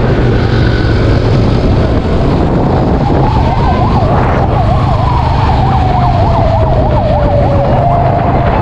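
Police patrol car siren starting about three seconds in with a rising wail, then switching between a fast yelp and a slow falling wail. Under it, the steady low drone of the motorcycle's engine and wind rush from riding.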